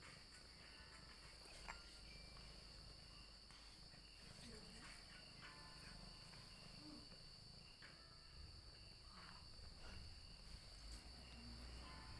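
Near silence: a faint steady high-pitched drone with a few faint scattered clicks.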